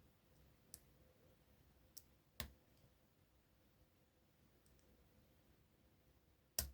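A few sparse, faint clicks of a lock pick working the pins inside a euro cylinder lock, with a sharper click near the end as a pin sets.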